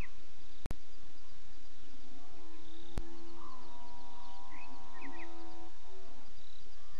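One long, drawn-out bellow of about three seconds, starting a little over two seconds in, over a background of night insects and chirping birds. The uploader takes the sounds of this night for lions killing a Cape buffalo, which fits a buffalo bellowing in distress. A brief dropout comes near the start and a sharp click about three seconds in.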